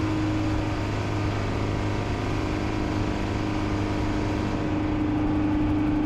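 Isuzu NPS 4x4 truck's diesel engine running at a steady drone while the truck drives up a soft sand track, pulling under load through the sand.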